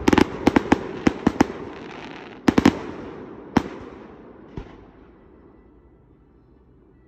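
Aerial firework bursts: a quick run of sharp bangs over the first second and a half, thinning to a few scattered reports. The last, faint one comes about four and a half seconds in.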